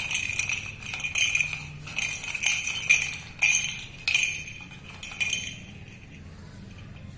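A puppy's plastic toy sound ball with a bell inside, ringing in a run of short jingles, about two a second, as it rolls and is nudged. The jingling stops about five and a half seconds in.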